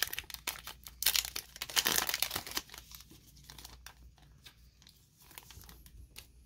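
Foil Pokémon booster-pack wrapper crinkling and tearing as it is pulled open by hand. The crinkling is loudest from about a second in to halfway, then drops to fainter, scattered rustles.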